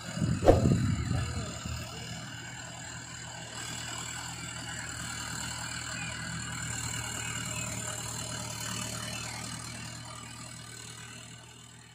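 Mahindra 575 DI XP Plus tractor's four-cylinder diesel engine running steadily while it pulls a rotavator, fading out near the end. A brief loud burst about half a second in stands above the engine.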